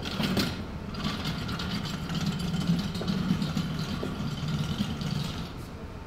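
Rhinoceros sound effect: a low rumble with a rattle that starts suddenly and fades after about five seconds.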